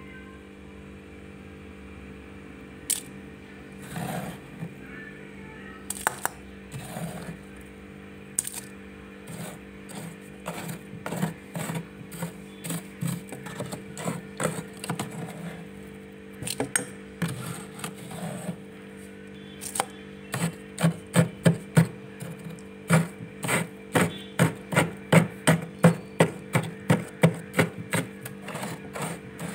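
Metal spoon scraping and scooping thick freezer frost: a series of short scrapes, sparse at first, then coming faster and louder, about two a second, for the last third. A steady hum runs underneath.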